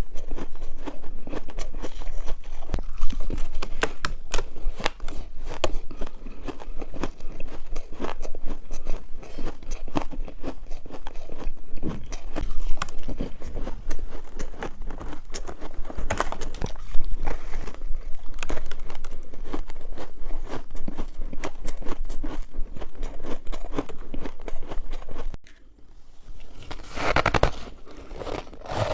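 Close-up crunching of dry freezer ice being bitten and chewed, a dense run of sharp cracks and crunches. Near the end it drops off briefly, then a louder, rougher crunch starts.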